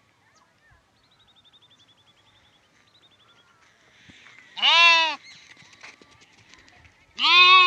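Lamb bleating twice: a short bleat about two-thirds of the way in, then a longer, louder-held bleat starting near the end.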